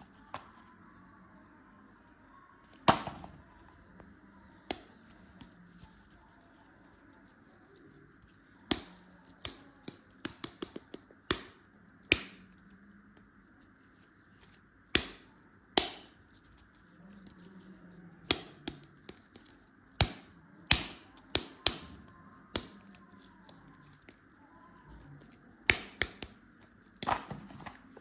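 Sharp, irregular clicks and taps from small hard objects being handled, some coming in quick runs of several, over a steady low hiss.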